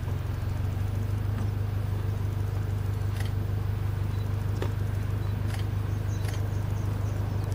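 Vehicle engine idling: a steady low hum that holds without change, with a few faint clicks over it.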